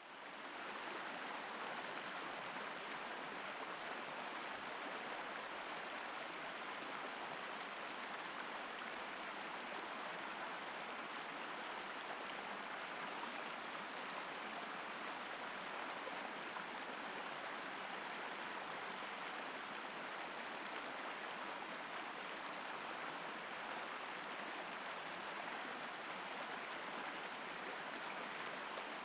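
River water flowing steadily, an even rushing and babbling of a stream that fades in at the very start.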